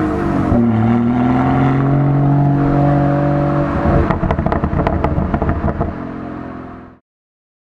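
BMW 440i's B58 turbocharged inline-six with the M Performance Power and Sound Kit, revving: the note dips, then climbs steadily for a few seconds. It falls back with a rapid string of exhaust crackles before settling at a lower steady note, and the sound cuts off abruptly near the end.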